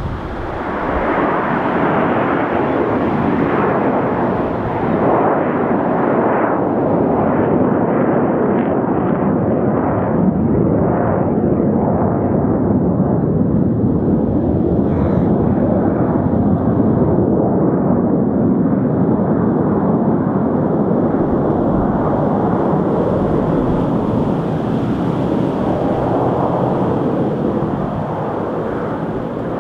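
The Red Arrows' BAE Hawk T1 jets flying a formation display overhead: loud, continuous jet-engine noise that swells in the first second and holds steady for nearly half a minute, easing slightly near the end.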